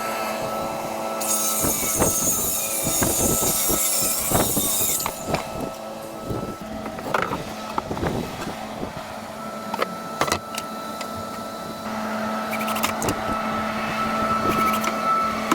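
Knocks and clattering of hand work on wooden boards being fitted into a box-truck conversion, over a steady droning tone. A bright rasping hiss runs for about four seconds near the start.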